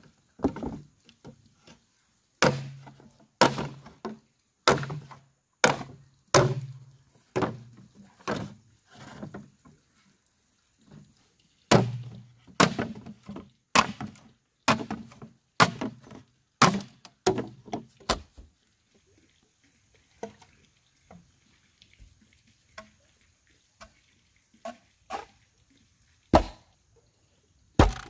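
Machete chopping into hollow bamboo poles in sharp strikes about one a second, each with a short low hollow ring. The strokes thin to occasional light taps for several seconds, then two more heavy chops come near the end.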